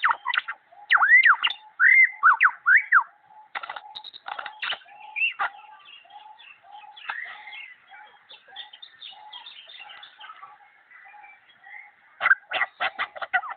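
Superb lyrebird mimicking sci-fi laser shots: a run of arching whistled 'pew' notes, then rapid clicking and softer chatter over a short lower note that keeps repeating. A fast burst of clicks comes near the end.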